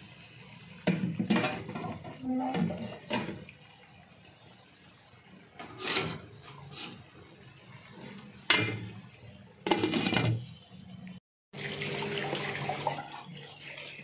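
Kitchenware knocking and clattering several times as a metal steamer is handled, then, after a brief cut, a tap running steadily into a sink.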